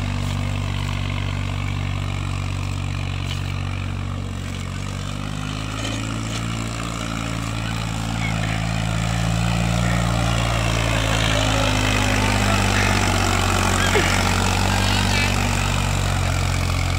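Sonalika DI 35 tractor's three-cylinder diesel engine running steadily under load as it pulls a 14-disc harrow through the soil in second gear of the high range. It grows louder about halfway through as the tractor comes close.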